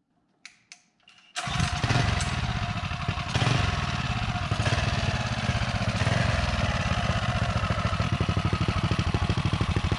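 Mega Moto 212 minibike's 212cc single-cylinder four-stroke engine running steadily, its firing pulses even. It comes in abruptly about a second and a half in, after a couple of faint clicks.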